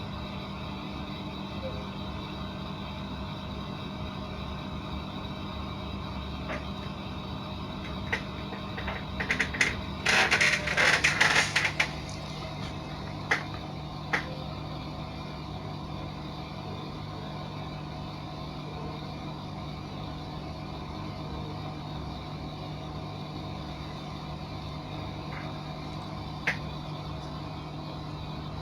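A steady low machine hum runs underneath, with scattered sharp clicks of plastic printer parts being handled. About ten seconds in there is roughly two seconds of rattling, hissing noise.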